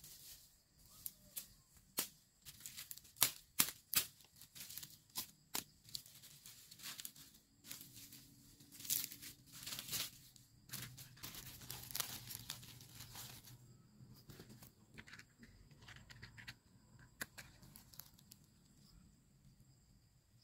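Dry twigs and bamboo leaves being snapped and crumpled by hand as kindling: a quick series of sharp snaps, then denser rustling and crackling in the middle, fading to a few scattered snaps near the end.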